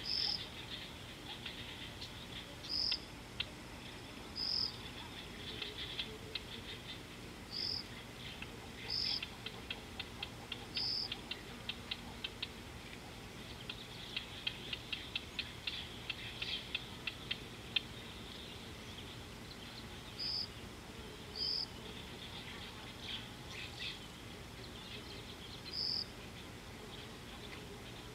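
Insects and birds in the bush: a short high peep repeated every second or two, over stretches of fast clicking chirps, with a steady low hum underneath.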